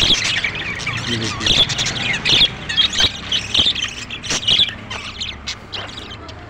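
A flock of budgerigars chattering, with many short chirps and squawks overlapping one another and a few sharp clicks.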